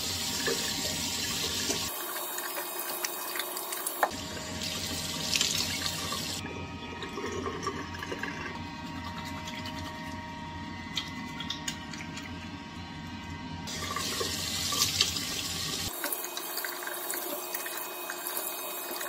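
Tap water running into a bathroom sink while hands are lathered and rinsed under it. The sound changes abruptly several times where short shots are cut together.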